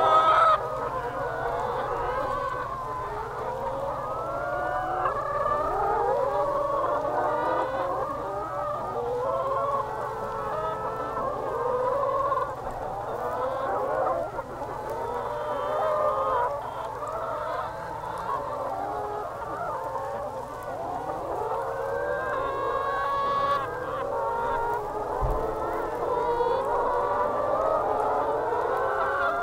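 A large flock of free-range laying hens calling all at once: a continuous chorus of overlapping clucks and drawn-out calls that rise and fall in pitch.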